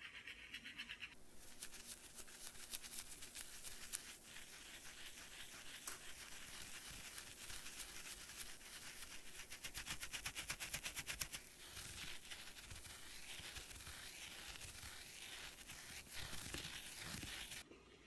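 Makeup brush bristles scrubbed back and forth over the textured silicone ridges of a Real Techniques brush-cleansing palette in soapy lather: a faint, wet scratching made of quick repeated strokes. It starts about a second in and stops abruptly near the end.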